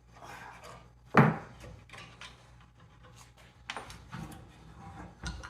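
Hand tools clinking and scraping on small engine hardware while a square nut is worked off a carriage bolt that spins because its square shoulder no longer grips. One sharp knock about a second in, then scattered light clicks and scrapes.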